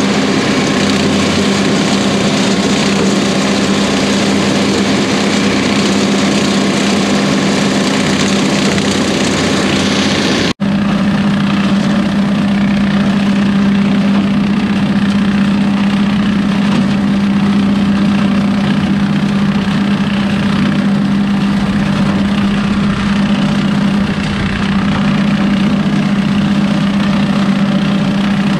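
John Deere 2038R compact tractor's three-cylinder diesel running steadily while driving a rotary cutter through dry corn stalks: a steady hum under a rushing, chopping noise. The sound drops out for an instant about ten seconds in.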